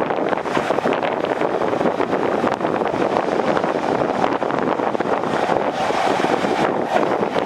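Heavy earthmoving machinery at work: a diesel engine running steadily with a dense metallic clatter.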